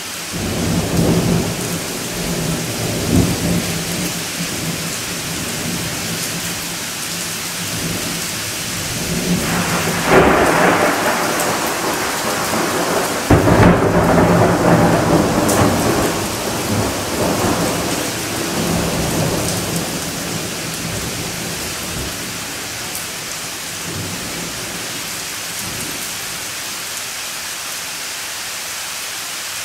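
Thunderstorm: steady rain falling with rolling thunder. A rumble swells near the start, two sudden louder peals break about ten and thirteen seconds in and roll on for several seconds, then the thunder dies away, leaving only the rain.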